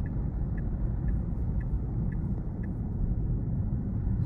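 Steady low road and tyre rumble heard inside the cabin of a Tesla electric car driving at city speed, with faint regular ticks about twice a second.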